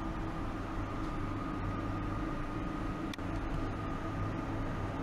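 Steady hum and hiss with a faint, steady high whine, broken by a single short click about three seconds in.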